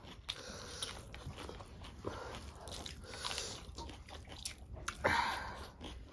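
Close-miked mouth sounds of eating: chewing and biting into food, including a raw green chilli, with a louder burst of sound about five seconds in.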